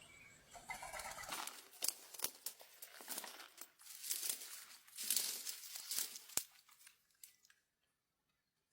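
Irregular rustling and crackling, with several sharp clicks, that stops about three quarters of the way through.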